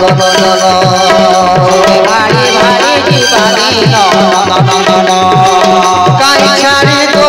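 Devotional bhajan music: tabla keeps a steady rhythm, its bass strokes sliding down in pitch, under a keyboard melody that bends up and down.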